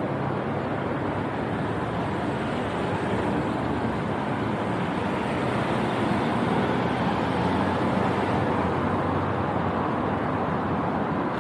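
Steady rush of wind and road noise from a moving motorcycle, with the bike's engine humming low underneath.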